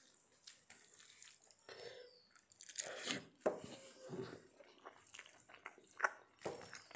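Fingers mixing cooked rice with curry on a stainless-steel plate: faint, irregular soft squishes and small clicks of fingertips against the steel.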